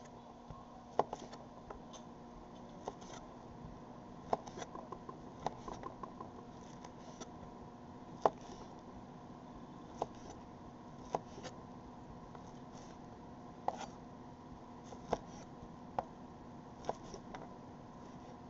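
Kitchen knife slicing through a chouriço sausage, the blade knocking sharply on a wooden cutting board at the end of each cut, irregularly about once every one to two seconds. A steady low hum runs underneath.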